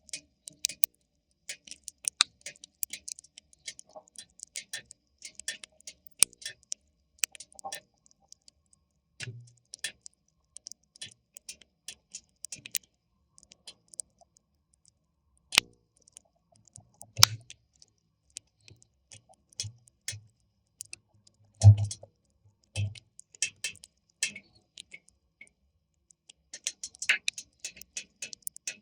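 Wood fire crackling, with irregular sharp snaps and pops and a few louder ones. A handful of short dull thumps come through, the loudest about two-thirds of the way in.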